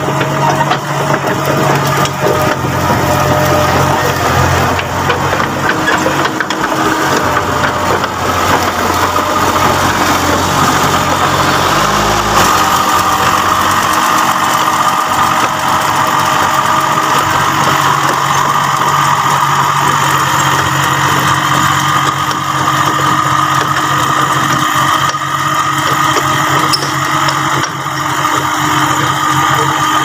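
Yanmar mini excavator's diesel engine running steadily as the machine travels on its crawler tracks, with the crunch of the tracks over the ground; about twelve seconds in the sound shifts, and a steady higher whine carries on from there.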